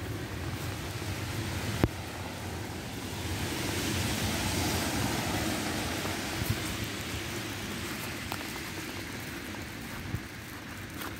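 Tyre hiss of a vehicle passing on the wet, slushy road, swelling to a peak a few seconds in and then fading. A single sharp click comes about two seconds in.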